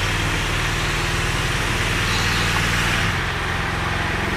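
Steady low mechanical hum with a hiss over it, a motor running without change.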